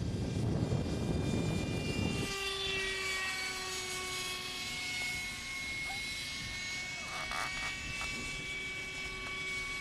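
Model aircraft's ducted fan whining steadily in flight, a high thin tone with a lower one beneath it. A low rumble covers the first two seconds.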